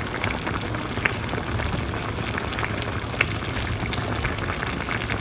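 Chicken pieces simmering in a pan in the watery yogurt juices of their marinade, sizzling and bubbling steadily with scattered small pops.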